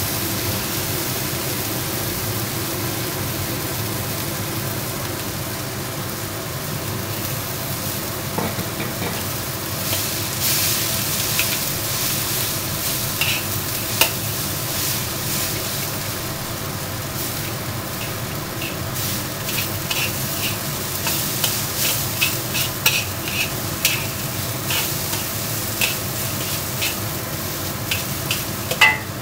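Fried rice sizzling in a wok while a metal spatula stirs and scrapes it, clacking against the steel. The clacks grow frequent and quick in the last ten seconds.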